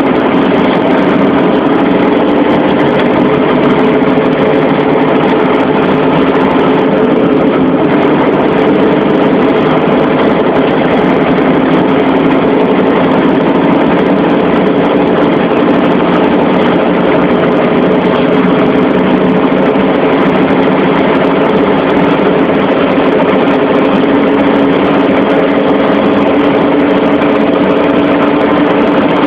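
Engine of a heavy grain-hauling farm vehicle running steadily and loudly at an even speed, with a constant low drone.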